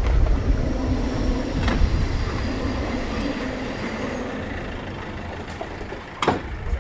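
A heavy vehicle rumbling past on a city street, loudest at first and fading away over a few seconds, with a sharp click near the end.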